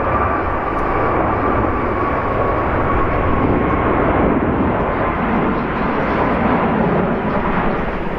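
Jet airliner engines, a loud steady roar with a whine that slowly falls in pitch as the aircraft passes.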